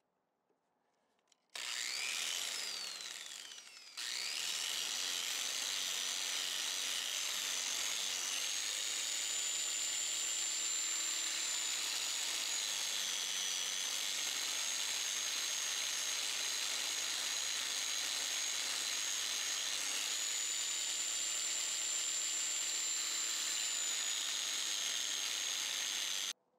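Angle grinder with a 200-grit diamond polishing pad, grinding a petrified wood bar. It starts about a second and a half in, winds down briefly, then starts again with a rising whine. It runs steadily with a high whine that dips and recovers in pitch, and stops abruptly near the end.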